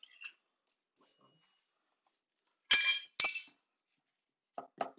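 Two sharp metal clinks about half a second apart, each with a short ringing tone, from a hammer striking metal tools, with a few faint knocks near the end.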